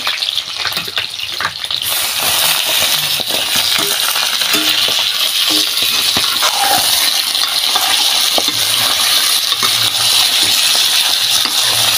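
Raw chicken pieces hitting hot oil in a large iron kadai: a few clicks and clatter, then from about two seconds in a loud, steady sizzle and crackle as the meat fries, stirred with a metal ladle.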